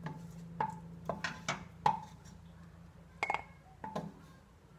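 A spoon clinking against a stainless steel pot and a glass jar as sauce is scooped from the pot into the jar: a string of sharp clinks with a short ring, loudest about two seconds in.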